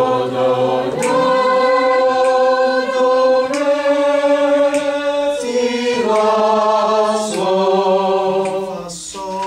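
A small class of students singing together, sight-singing held notes that step to a new pitch every second or two.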